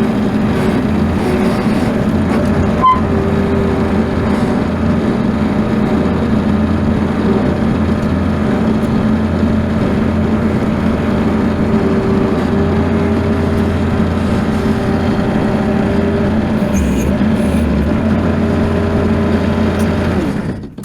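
Bobcat skid steer loader's engine running steadily, then shut off, cutting out suddenly near the end.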